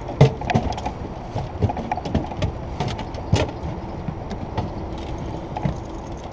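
Irregular knocks and clunks in a metal fishing boat as a hooked fish is netted and splashes at the boatside. The sharpest knocks come about a quarter second in and about three and a half seconds in, over steady low background noise.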